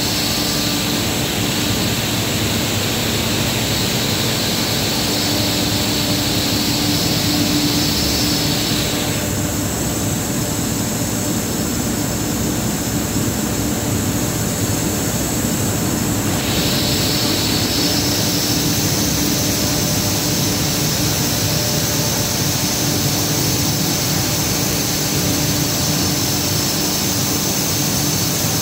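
PURUI 800 kg/h single-screw plastic recycling granulating line running: a loud, steady industrial machine noise with a low hum and a high hiss. The high part drops away for several seconds midway and then comes back.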